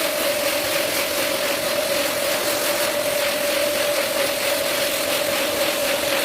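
Carpet-cleaning machine running steadily: a constant motor whine over a rushing hiss.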